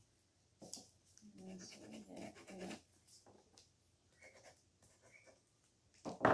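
A low, rough vocal sound, a grumble or hum, lasting about a second and a half starting a little after a second in, over light scratching and clicking of a pen on paper, and a sharp knock near the end.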